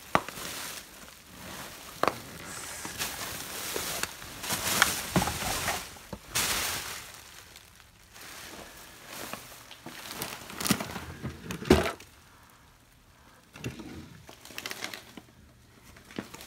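Handling noise from someone moving through heaped clutter: rustling and crinkling of plastic and paper, broken by several sharp clicks and knocks, the loudest about two-thirds of the way through.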